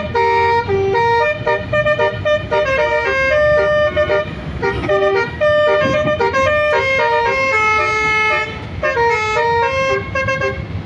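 Bus basuri 'telolet' horn playing a rapid melody of short horn notes that step up and down in pitch, with a few longer held notes.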